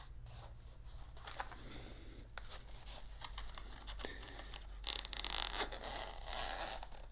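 Zipper on a shaver's carrying case being pulled open, with scraping and handling of the case; the loudest rasping comes about five seconds in.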